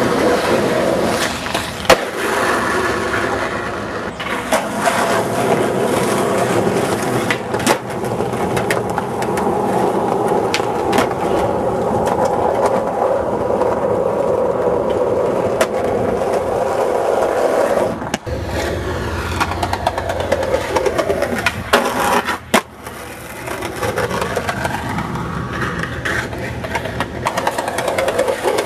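Skateboard wheels rolling on concrete, broken several times by sharp clacks of tail pops and board landings.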